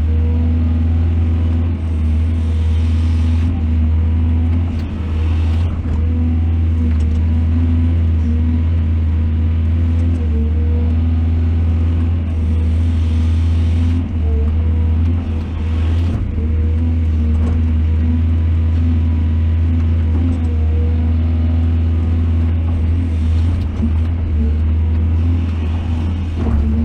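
Excavator's diesel engine running steadily: a deep, even hum with a constant tone, and a few faint knocks.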